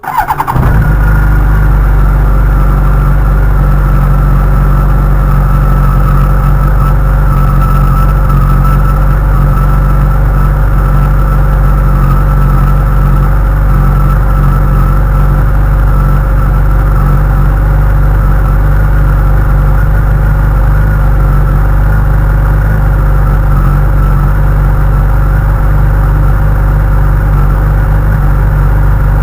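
Honda CBR1100XX's inline-four engine starting from cold, catching within half a second, and settling into a steady idle with a newly replaced tensioner.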